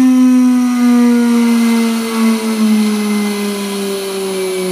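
Multicam MT22 CNC router spindle motor running with its collet empty, a whine that falls slowly and steadily in pitch as the spindle speed is brought down from 24,000 toward 4,000 RPM.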